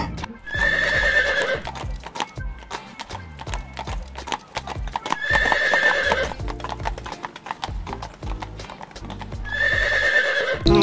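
Horse hoofbeats clip-clopping at a steady walk, with a horse whinnying three times, over background music.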